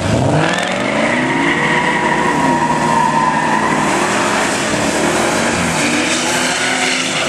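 Ford SVT Lightning pickup's supercharged V8 revving up sharply and held at high revs while its rear tyres spin in a burnout.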